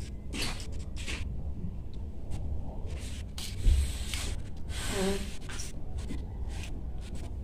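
Scattered soft rustles of long hair and cloth being handled and gathered, over a steady low rumble, with one brief pitched sound that falls in tone about five seconds in.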